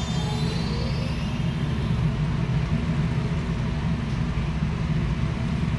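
A steady low rumble, with the tail of electronic music fading out within the first second.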